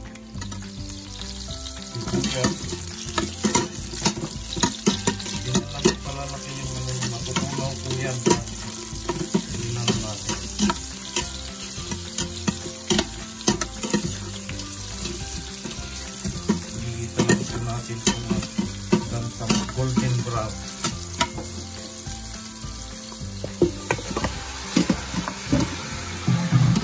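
Garlic and sliced onions sizzling in hot oil in the stainless steel inner pot of an electric pressure cooker, with a metal spoon repeatedly clinking and scraping against the pot as they are stirred. Near the end there is a louder clatter as chunks of raw beef go into the pot.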